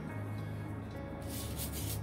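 A pen drawn along a ruler across pattern paper, a dry rubbing stroke in the second half, over soft background music.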